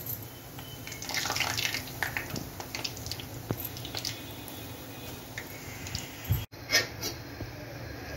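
Rice-flour murukku dough deep-frying in hot oil in a steel bowl: steady sizzling with many quick crackling pops. The sound cuts out for an instant about six and a half seconds in, followed by a couple of sharp clicks.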